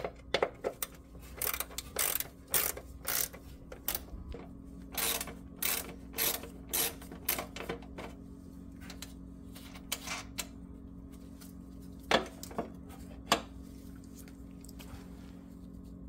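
Socket ratchet clicking in quick runs as a 10 mm bolt is backed out, the clicks thinning out after the first half, over a steady low hum.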